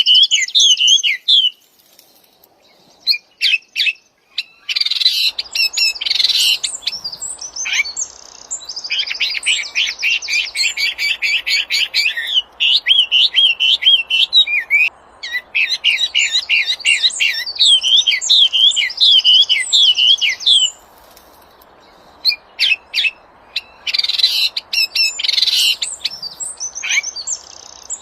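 A wambi, a small songbird, singing: loud bursts of rapid, high chirping trills and warbling phrases. The song breaks off twice, briefly near the start and for a couple of seconds about three-quarters of the way through, then starts again.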